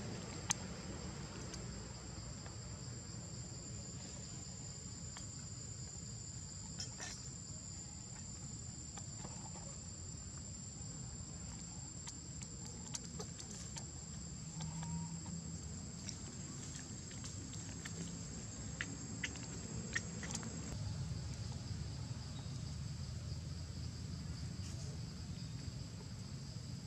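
Steady high-pitched insect drone in two constant tones, with scattered faint clicks and crackles, most of them in the middle.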